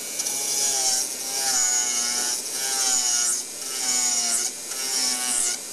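Dental milling machine's roughing cutter grinding a cast metal coping in small passes: a high-pitched whining grind that comes in strokes about a second long, with short dips between them as the cutter is eased off and brought back.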